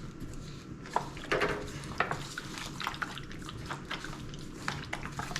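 Mustard-coated catfish fillets being mixed by hand into cornmeal and spice: wet squishing with many irregular short clicks and taps.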